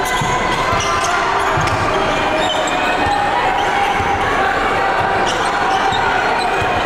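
A basketball dribbled on a hardwood gym floor, bouncing repeatedly, over the steady chatter of a crowd in a large gym.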